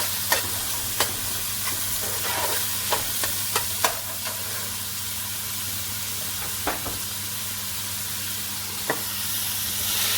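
Food frying and sizzling in a pan with a steady hiss, while a utensil stirs it, giving scattered sharp clicks and scrapes against the pan, most of them in the first few seconds.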